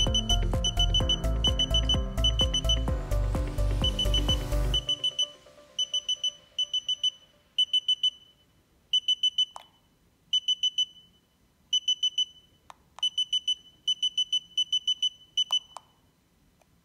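Tacklife HD40 laser distance meter beeping as it measures: short, high electronic beeps in quick clusters of three or four, repeating about once a second with a few longer gaps, and a few sharp clicks. Background music with a steady beat plays under the first few seconds and ends about five seconds in.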